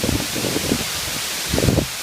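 Steady rushing of a waterfall, with wind buffeting the microphone in uneven low gusts, strongest near the end.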